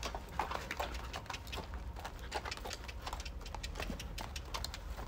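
Irregular small clicks and scuffs of a horse and handler moving on sand as the lead rope is tapped to ask the horse to step forward, over a low, steady rumble.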